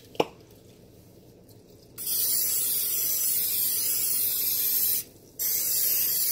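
Aerosol can of cooking spray hissing in two long bursts, about three seconds and then two more after a short break, coating the cooking surface with oil. A single sharp click comes shortly before the first burst.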